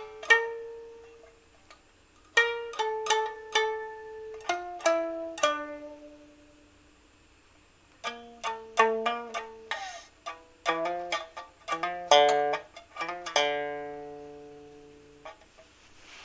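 Solo improvised music on a string instrument. Phrases of quick notes and chords each ring out and fade, with short pauses between phrases, one about six seconds in and another near the end.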